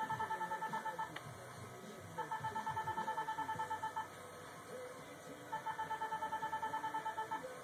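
Ulthera ultrasound system beeping in rapid trains of identical high tones, about nine beeps a second. Three trains of about two seconds each, separated by short pauses, as the handheld transducer delivers a line of focused ultrasound pulses into the skin.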